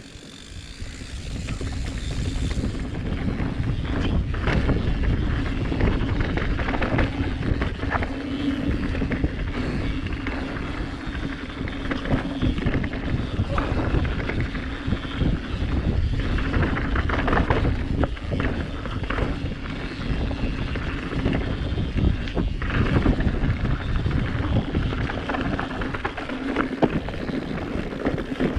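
Mountain bike on a dirt trail: continuous tyre rumble and wind buffeting on the bike-mounted or helmet camera, with frequent short knocks and rattles from the bike going over roots and rocks. It builds up over the first couple of seconds as the bike gets going.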